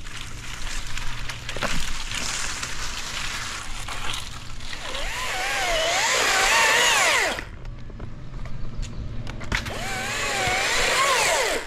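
Top-handle chainsaw cutting through a dead maple limb, its engine pitch sagging and recovering as the chain bites into the wood. The engine drops off suddenly about seven seconds in, then bites again in a second cut near the end.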